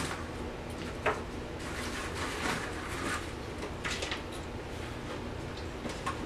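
Frozen chicken pieces being placed and shifted by hand on metal sheet trays: soft scattered rustling and light handling noises, with a sharp click at the start and another about a second in.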